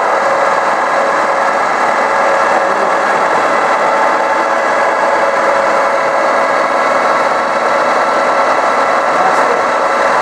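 Metal lathe running with a steady mechanical noise, motor and gearing humming evenly with faint steady tones.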